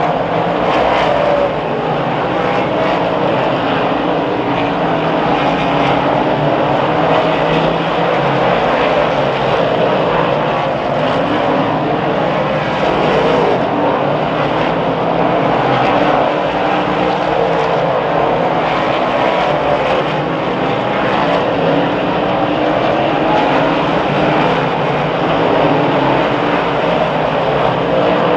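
A field of 358 dirt modified race cars, their V8 engines running together in a steady roar as the pack circles the track.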